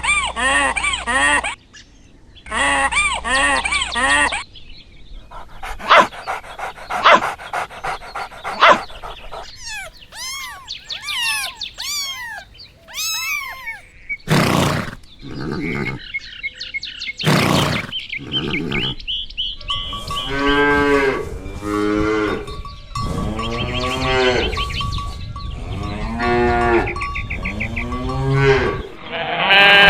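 Cattle mooing, call after call, as a series of separate pitched calls that arch up and fall away.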